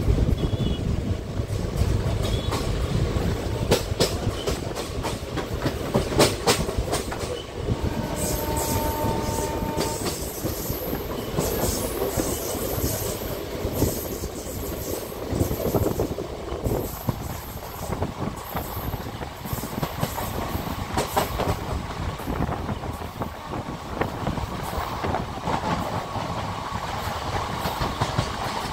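Passenger train running at speed, heard from an open coach door: steady rumble and wind rush with the wheels clicking over rail joints. A train horn sounds for about two seconds around eight seconds in.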